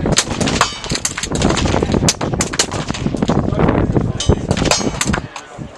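Suppressed gunfire on a range: a rapid, irregular string of shots, closely spaced and at times overlapping, as if from more than one gun firing on the line.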